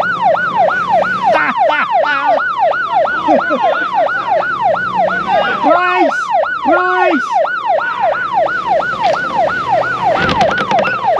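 Siren-style sound effect laid over the footage: fast rising-and-falling electronic whoops, about three a second, with a couple of short held notes about six and seven seconds in.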